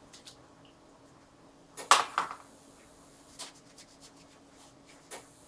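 Small objects handled on a tabletop: a quick clatter of clicks and knocks about two seconds in, then a few lighter taps.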